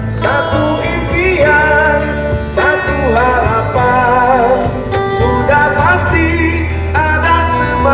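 Live busker band playing a rock song on guitars, bass and cajon, with a wavering, vibrato-laden melody line over a steady bass.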